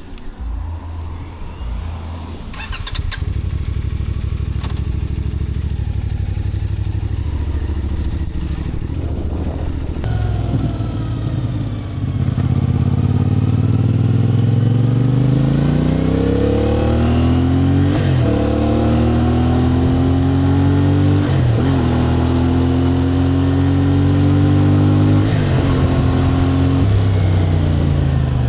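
A vehicle engine running steadily at low revs, then from about a third of the way in accelerating through the gears: the pitch rises, drops sharply at each of three shifts, and rises again.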